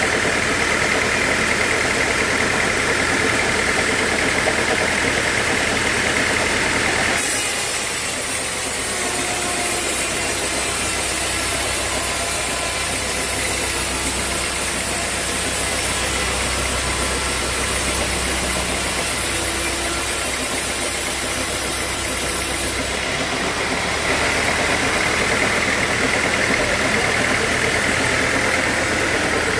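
A sawmill saw running steadily. From about seven seconds in, a brighter hiss joins as the blade cuts through a teak log, and at about twenty-three seconds it gives way again to the running machine alone.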